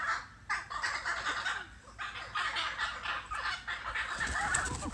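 Female bare-faced curassow calling in a run of harsh, noisy bursts, each about half a second to a second long, with a louder low flurry near the end. The bird is agitated and about to attack.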